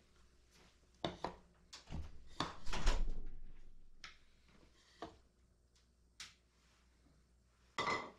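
A few scattered knocks and clatters of things being handled in a kitchen, several close together between about one and three seconds in and one more near the end, with quiet room tone between them.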